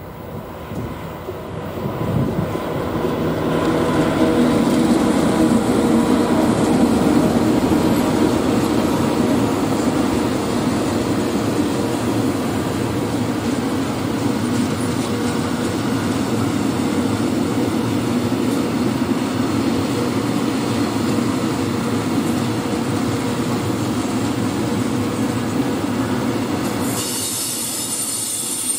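Long freight train of open coal wagons rolling past at close range, a steady rumble of wheels on rail that builds over the first few seconds as the wagons follow the electric locomotive. A high-pitched wheel squeal joins near the end.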